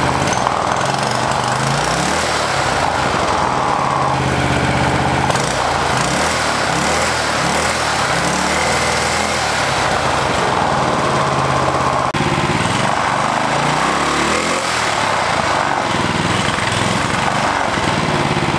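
Small single-cylinder four-stroke engine, built from Honda GX200 and Predator 212 parts, running continuously on its first runs on an engine stand, its pitch wavering a little.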